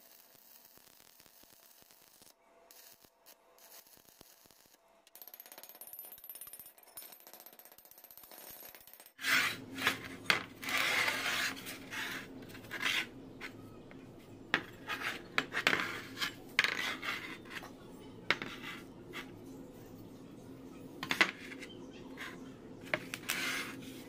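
Faint hiss at first; then, about nine seconds in, steel parts of a homemade flat-bar door latch clink, click and scrape as they are handled and moved, with a steady low hum underneath.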